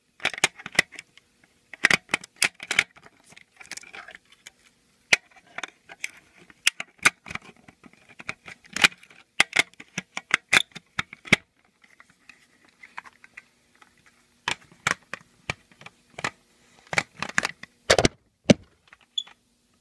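Irregular plastic clicks, knocks and rattles of a household smoke alarm being handled, coming in clusters with a heavier knock near the end.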